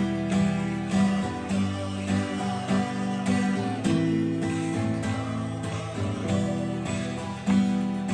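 Acoustic guitar strumming chords in a steady rhythm, a strum about every half second.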